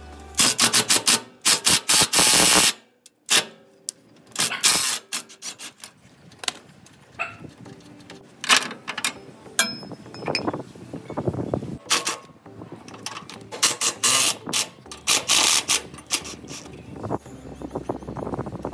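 Impact wrench with a 17 mm impact socket undoing the bolts of a vehicle's tow points: a long rattling run of hammering starting about half a second in, then many shorter bursts with metal clinks between them.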